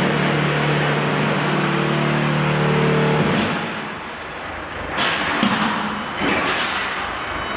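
Forklift engine running, its pitch rising as it revs about two to three seconds in, then dropping away abruptly. A few sharp metallic clanks and knocks follow in the second half.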